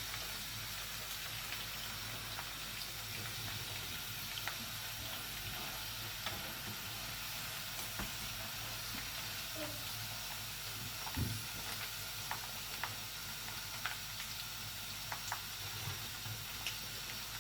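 Batter-coated chicken pakora pieces deep-frying in hot oil: a steady sizzle with scattered small pops and ticks, and a few knocks as pieces are stirred and lifted out.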